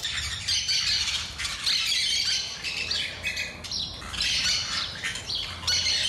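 A flock of yellow-chevroned parakeets chattering, with many short high squawks overlapping one another without a break.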